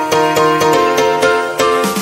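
Background music with a steady beat of short, quick notes, about four a second.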